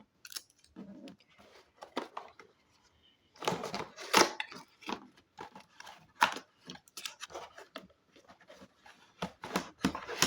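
Power strip's retail box being opened by hand: irregular scraping, tapping and rustling of cardboard and plastic packaging.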